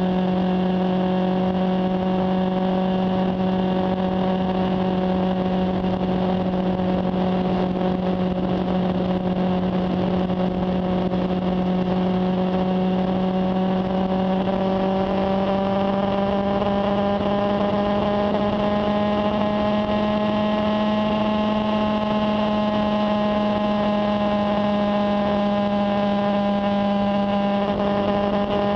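Honda CB400 Super Bol d'Or's inline-four engine running at steady cruising revs. Its hum rises a little in pitch about halfway through, then holds.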